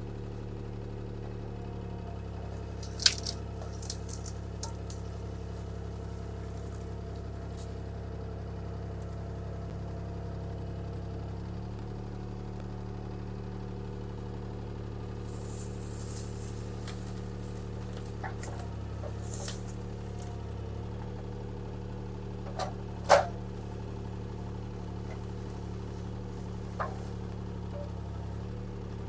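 Diesel engine of a compact earth-moving machine running steadily at a low hum while it moves tree limbs and brush. Sharp knocks come a few seconds in and again about two-thirds through, with a short hiss near the middle.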